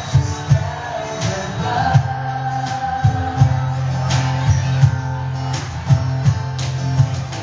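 Live pop band: female voices singing into microphones over strummed guitar, a steady low bass line and regular drum hits about every half second.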